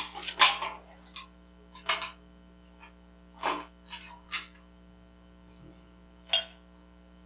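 Whiskey tasters nosing and sipping a glass: a handful of short, scattered sniffs and slurping sips over a steady electrical hum.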